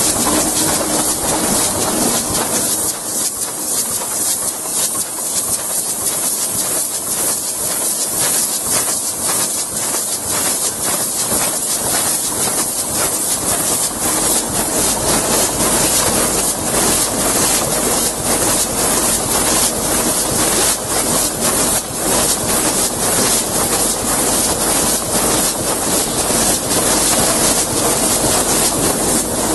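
Vega Altair folder-gluer running in production: a steady mechanical clatter and hiss, with dense rapid clicking as the cardboard blanks feed along the belts. A deeper hum fills in about halfway through.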